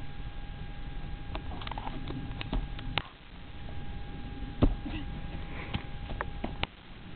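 A single loud thud about four and a half seconds in, a person landing on grassy ground after jumping down from a utility box. Under it runs a steady low rumble on the microphone with a faint steady tone, and a few small scattered clicks.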